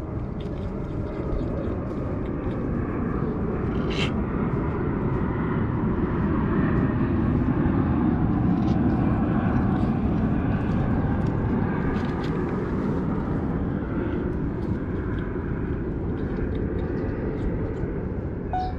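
Low rumble of a passing aircraft, swelling toward the middle and easing off again, with faint scattered clicks over it.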